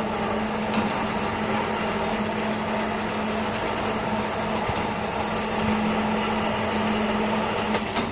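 PC strand pusher machine running steadily, its electric motor driving the rollers that feed steel prestressing strand into a girder duct. A steady hum sits over a rattling mechanical noise and cuts out just before the end.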